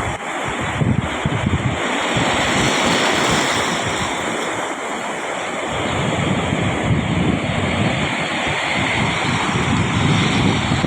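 Sea surf washing onto a sandy beach, a steady hiss, with wind buffeting the microphone in low gusts.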